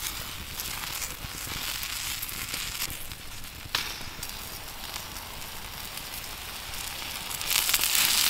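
Wood fire crackling under a plancha of frying potato slices, with a low sizzle and one sharper crack a little before halfway. Near the end a louder sizzling hiss starts as oil is poured onto the hot plate.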